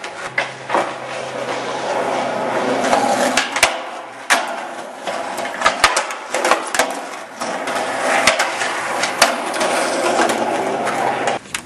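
Skateboard wheels rolling, swelling and fading, with several sharp clacks of the board hitting the ground. A faint steady low hum runs underneath.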